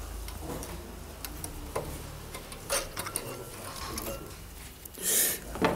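Scattered light metallic clicks and taps of hand tools and brake parts being handled, with a short louder scrape about five seconds in.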